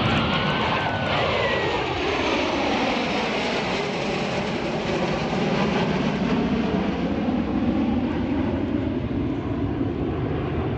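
Jet aircraft flying past, its engine noise sweeping down in pitch over the first several seconds and then holding steady.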